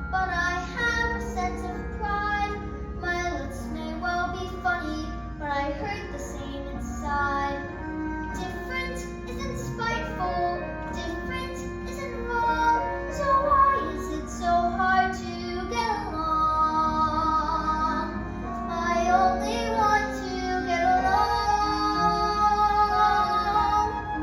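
A high, young-sounding voice singing a song over musical accompaniment, with longer held notes in the last third.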